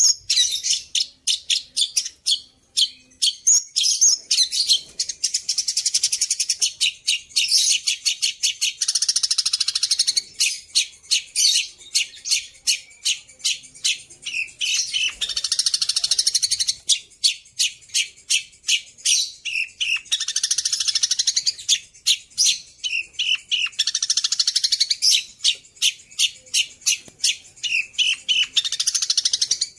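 Long-tailed shrike (pentet) singing a mimicry song. It runs quick series of sharp, high notes, several a second, broken every few seconds by fast, dense chattering runs.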